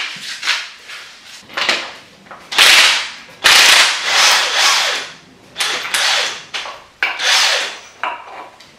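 Hand ratchet being worked on the bolts at the front of an engine: a series of loud rasping strokes, each half a second to a second long, with short gaps between them.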